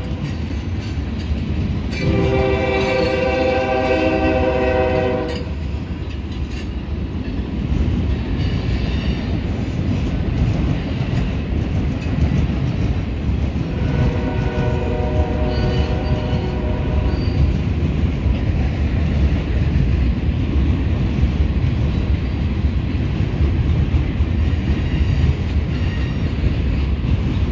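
Freight train rolling past close by, its cars making a steady rumble on the rails. A diesel locomotive horn sounds a long chord about two seconds in, lasting about three seconds, and a fainter one about fourteen seconds in.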